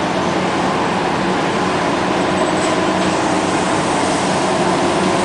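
Steady hum inside an electric train car standing at a station, with a few fixed tones over an even noise, from the car's running on-board equipment.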